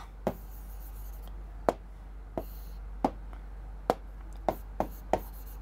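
About eight light, sharp taps of a pen on a writing surface, irregularly spaced, over a steady low electrical hum.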